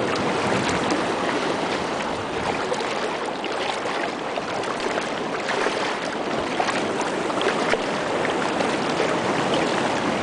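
Water rushing and splashing against a kayak as it moves through the water, a steady wash full of small crackling splashes.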